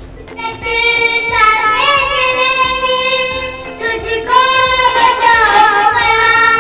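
Song with a high sung voice holding long notes that slide in pitch, over music.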